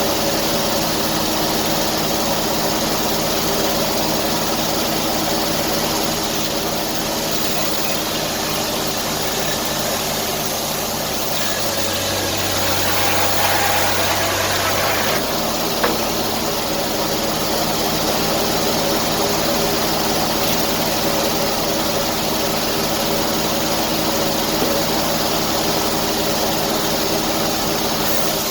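Sawmill engine running steadily under a strong hiss. Its note changes for a few seconds around the middle, and a single sharp click follows.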